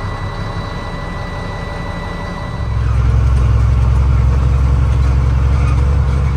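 Freightliner FL70 truck's diesel engine running, then getting louder and heavier about two and a half seconds in as it is revved or pulls away. A thin steady high tone sounds over the engine for the first two seconds or so.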